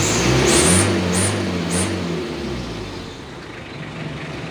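Mitsubishi L300 diesel engine blipped about three times in quick succession, each rev carrying a short hiss, then settling back toward idle. The whir comes through an aftermarket (KW) Mitsubishi Canter flexible exhaust pipe fitted for the 'ngir-ngir' turbo-like sound, judged 'pretty good' for a knock-off part.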